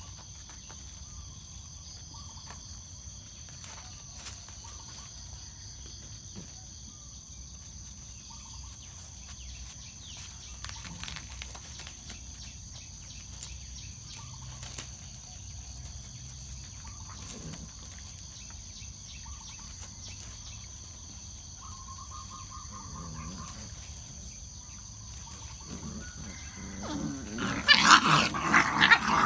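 Two puppies play-fighting, with faint scuffles over a steady insect drone. Near the end comes a loud burst of puppy growls and yaps as they wrestle.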